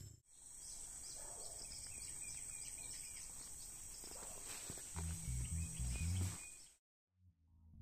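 Outdoor ambience with a steady high-pitched insect buzz and a few bird chirps. About five seconds in, music with a plucked bass line comes in, cuts out briefly near the end, then starts again.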